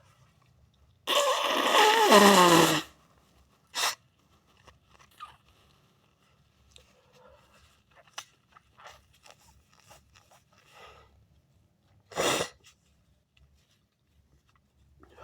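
A person's loud sneeze about a second in, its voiced end sliding down in pitch. Small sniffs and rustles follow, then a much shorter, sharp burst of breath near the end.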